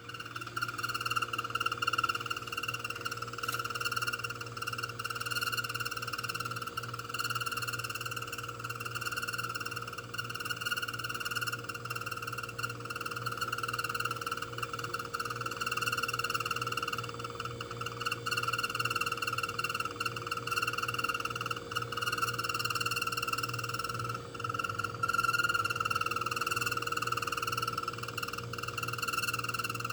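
Refrigerator making an abnormal noise: a steady, high-pitched buzzing drone over a low hum.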